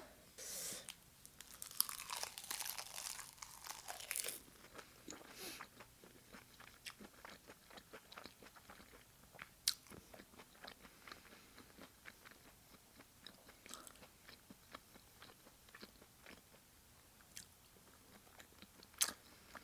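Close-miked chewing of sushi and sashimi: wet, sticky mouth clicks and smacks, densest in the first few seconds, then a long run of small clicks, with a sharper click near the middle and another near the end.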